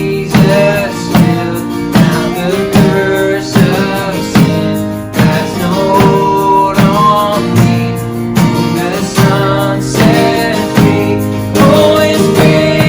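Worship band music, guitar strumming on a steady beat under sustained chords.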